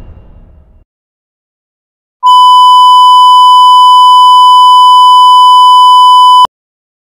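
A loud, steady electronic beep tone, one held pitch of about 1 kHz like a censor bleep or test tone, lasting about four seconds and cutting off abruptly. It comes after the fading tail of an earlier bang and a moment of dead silence.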